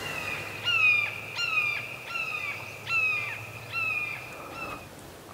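A wild bird calling a series of about six loud, clear notes, each falling in pitch, repeated at a steady pace under a second apart.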